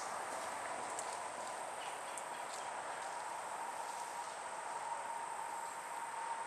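Steady outdoor insect chorus, a constant high-pitched drone, with a few faint clicks.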